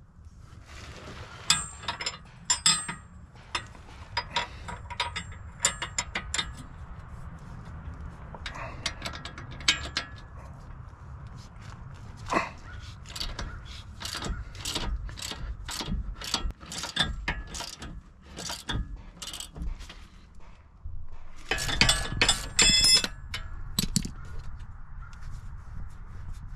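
Socket ratchet clicking in short strokes as the 18 mm nut on a Jeep's front sway bar end link is undone, a box wrench holding the other side. The clicks come in scattered groups, then a steadier run, and a quick dense burst about 22 seconds in.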